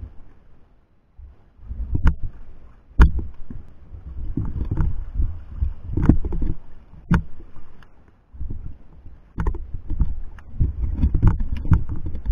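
Underwater water movement against a camera housing on a pole: irregular low rumbling surges with sharp knocks scattered through, as the rig sways and bumps.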